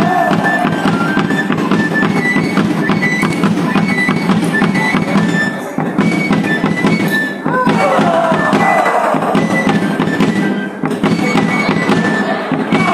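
Live traditional dance music: a high, reedy wind instrument playing short repeated notes over a steady drum beat.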